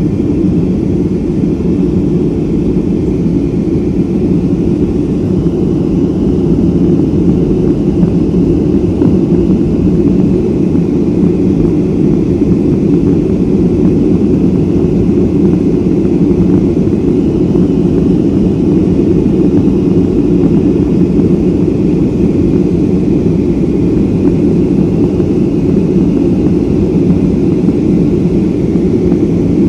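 Steady roar inside the cabin of a Boeing 757-200 climbing after takeoff, heard from a seat near the rear: engine noise and rushing air, loud and even, with a faint steady whine above it.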